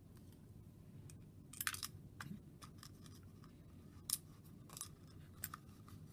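Light clicks and scrapes of a cover and its loose screws, sleeves and washer being handled and fitted onto an electric stroke actuator's housing. They come irregularly, with the sharpest click about four seconds in.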